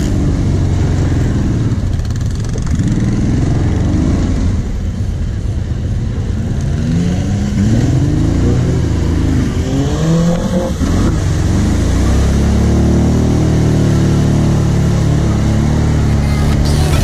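Kawasaki Brute Force 750 ATV's V-twin engine being ridden, revving up and down in a series of throttle surges, then holding a steadier, harder pull over the last few seconds.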